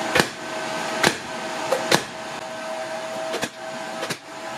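Sharp plastic clacks, six or so about a second apart, as a Nicer Dicer lid is pressed down to push zucchini slices through the 7 mm cutting grid. Under them runs the steady fan hum of a De'Longhi Multifry hot-air cooker, with a constant tone.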